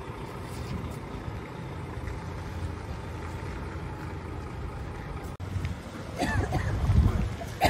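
Wind buffeting the microphone as a steady low rumble. It gets louder and gustier after a sudden break about five seconds in, and a few short gliding high sounds come through near the end.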